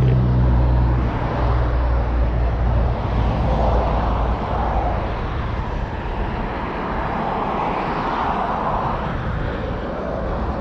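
Outdoor vehicle noise: a steady low engine hum that fades out about three seconds in, under a broad rumble that swells and ebbs.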